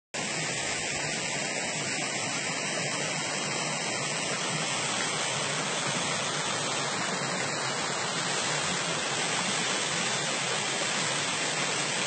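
Tall waterfall, about 50 m high, pouring onto rocks and into a pool: a steady, even rush of falling water.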